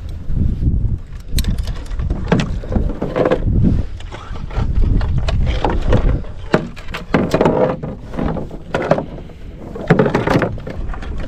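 Paddle strokes splashing in shallow marsh water as a pirogue is paddled along, repeated roughly once a second over a steady low rumble.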